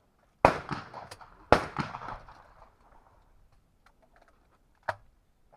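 Two shotgun shots about a second apart, each echoing off as it fades, a double fired at a pair of clay targets. A smaller sharp click follows near the end.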